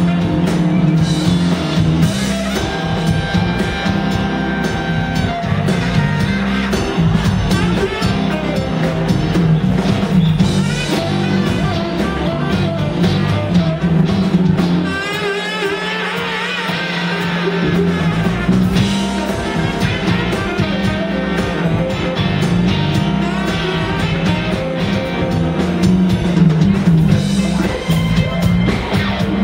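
Live blues-rock band playing: electric guitar, saxophone, keyboard, bass and drum kit. Around the middle the bass and drums drop out for a few seconds, leaving a wavering high lead line, then the full band comes back in.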